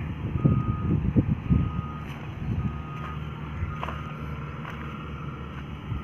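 Construction vehicle's reversing alarm beeping, half-second beeps about once a second that run almost together in the second half, over a low rumble.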